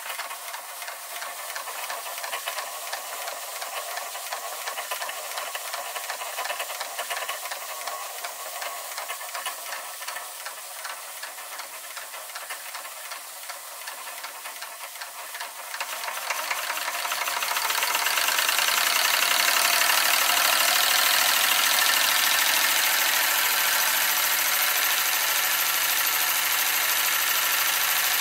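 Doll 365/1 twin-cylinder live-steam model engine running, with a fast, even mechanical clatter and steam hiss. About sixteen seconds in the sound grows louder and fuller, then holds steady.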